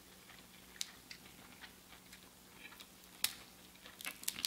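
Quiet eating sounds: faint chewing and mouth clicks with a few sharp clicks, and a small cluster of crisp bites near the end as a stalk of broccolini is bitten, over a faint steady hum.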